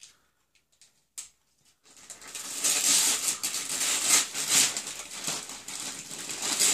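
Gift-wrapping paper crinkling and tearing as a small child rips open a present. It starts about two seconds in, after a couple of faint ticks, and goes on as a dense crackle.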